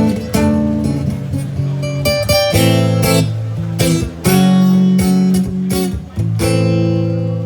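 Acoustic guitar strummed in an instrumental passage: ringing chords, freshly struck every second or two, with harder strums about two and a half, four and six and a half seconds in.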